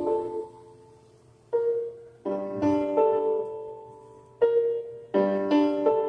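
Slow instrumental backing music: keyboard chords struck sharply every second or so and left to ring out, over a low steady hum.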